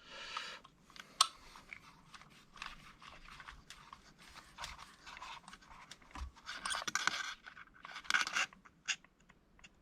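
Hands working on a hobby-grade RC car's drivetrain: irregular small clicks and scrapes of plastic and metal parts being handled, with two louder scraping spells near the end.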